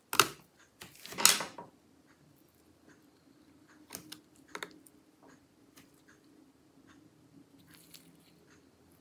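Metal M.2 SSD shield, lined with a thermal pad, being unclipped and lifted off a laptop motherboard. It gives a sharp snap, a moment of crackling about a second in as it comes free, then a couple of light clicks about four seconds in.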